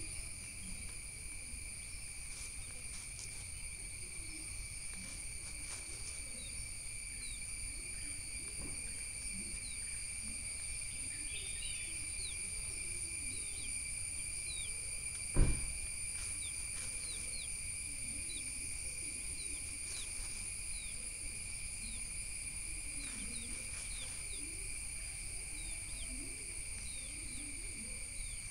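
Forest ambience: a steady high-pitched insect drone throughout, with scattered short, quick falling chirps and faint scuffling in leaf litter. One sharp knock stands out about halfway through.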